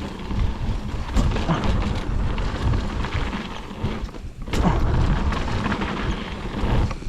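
Mountain bike riding down a rough trail: wind rumbles heavily on the GoPro's microphone over the clatter and sharp knocks of the bike on the ground.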